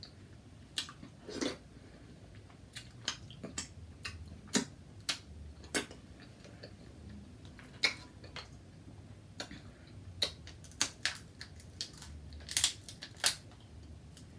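Snow crab leg shells being cracked and snapped open, an irregular run of sharp cracks and clicks, the loudest near the end, with chewing in between.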